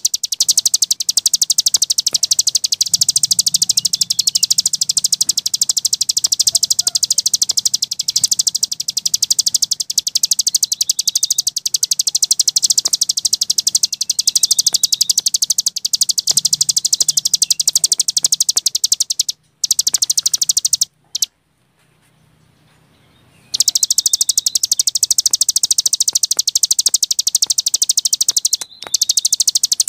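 Cigun (ciblek gunung) songbird singing a very fast, continuous high trill of rapidly repeated notes in the 'gebren' style. The song breaks off for a few seconds about two-thirds of the way through, then resumes.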